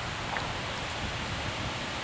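Steady background hiss of outdoor ambience with no distinct event, apart from one faint click about a third of a second in.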